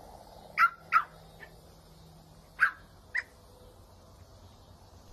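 A small puppy yapping: four short, high yaps, in two quick pairs.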